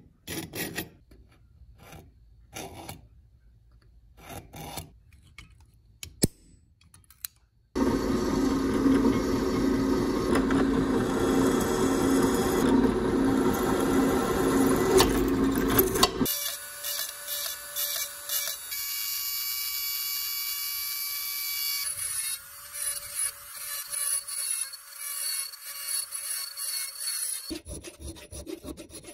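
A few light clicks and scrapes, then a drill press drilling holes in a steel bar, a loud steady run of about eight seconds. A different, higher steady machine sound follows. Near the end comes hand filing of a steel angle clamped in a vise.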